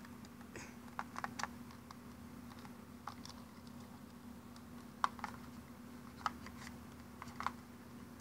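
Scattered light clicks and taps of fingers handling plastic toys, a toy figure and a clear plastic piece, the sharpest about five seconds in. A faint steady hum runs underneath.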